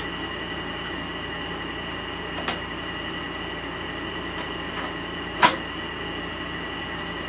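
Cassette deck's tape door clicking open, then a louder sharp snap about five and a half seconds in as the cassette is loaded and the door pushed shut. A steady background hum runs underneath.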